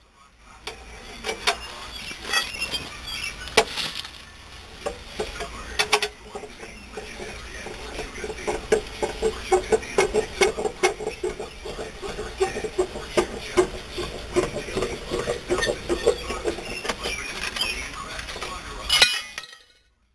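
Scissor jack being cranked down by its metal handle to lower the car: irregular metallic clinks at first, then a quick, steady run of clinking and rattling as the crank rod turns in the jack. It stops abruptly near the end.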